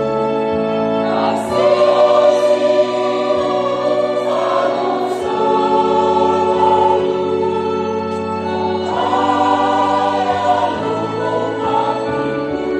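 A mixed church choir singing a hymn together in sustained, held chords, swelling louder in phrases.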